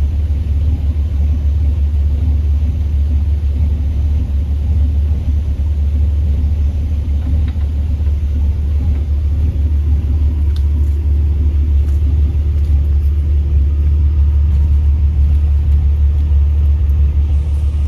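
Off-road vehicle engine idling, a steady, low engine note that does not rev.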